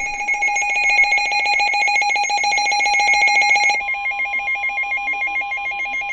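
Weather radio emergency alert: a loud, rapidly warbling electronic alarm. About four seconds in the pattern changes, and a steady tone near 1 kHz sets in under it, typical of the NOAA Weather Radio warning alarm tone that comes before a warning is read.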